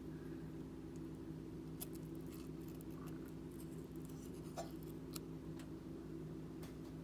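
Faint scraping and a few light clicks of a utensil mashing boiled potatoes and eggs in a bowl, over a steady low hum.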